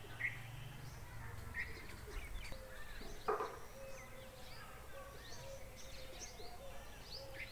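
Several small birds chirping and calling outdoors, short scattered calls throughout with one louder call a little before the midpoint, over a faint steady hum. A low rumble fades out in the first second.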